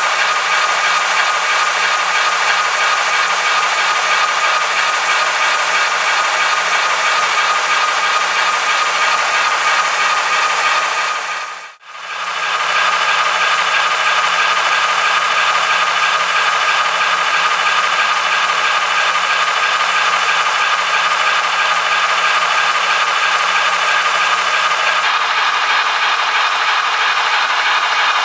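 Motor and gear drive of a Trix HO-scale SNCF 241 A model steam locomotive running with its wheels turning: a steady whirring with mechanical rattle. The sound dips away briefly about twelve seconds in, then comes back.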